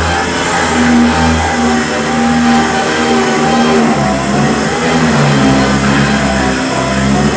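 Power sander running steadily with a hissing grind, with music with a stepping bass line playing underneath.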